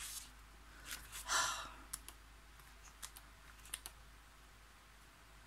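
Pages of a paperback booklet being turned by hand: soft paper rustles and scattered light ticks, the loudest a longer rustle about a second and a half in.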